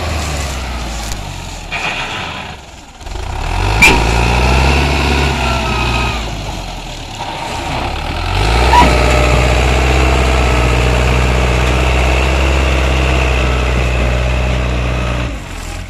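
Belarus tractor's diesel engine working hard pulling a heavily loaded sugarcane trolley. The engine note dips and picks up twice, then holds a steady hard pull for several seconds before easing off near the end. There are two sharp knocks, about 4 and 9 seconds in.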